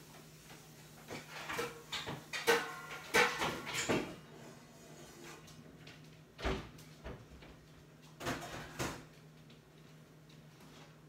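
A run of household knocks and clatters in the first four seconds, a single sharp thump about six and a half seconds in, and a few more knocks near nine seconds, over a faint steady low hum.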